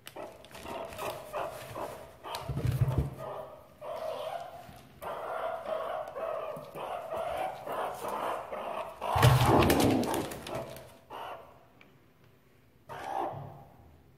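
Meerkats rummaging through plastic bags, the plastic crinkling and rustling, with meerkat calls that sound like small barks. Two louder bursts stand out, the loudest about two thirds of the way through, before it goes quieter near the end.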